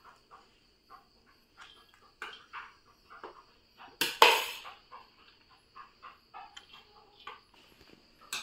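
Metal slotted skimmer scooping and scraping cooked basmati rice into a pot, with scattered light taps and scrapes and a louder clatter about four seconds in.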